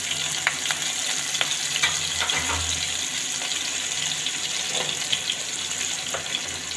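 Cumin seeds and chopped green chillies sizzling in hot mustard oil while a tadka is tempered: a steady hiss with scattered crackling pops.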